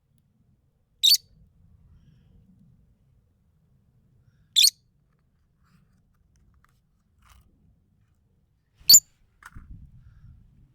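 Bonfire with burning wood giving three sharp, high-pitched pops, spaced about three and a half to four seconds apart, over a faint low rumble.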